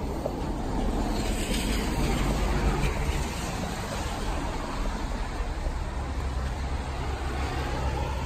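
Steady low rumble of wind buffeting a phone microphone outdoors.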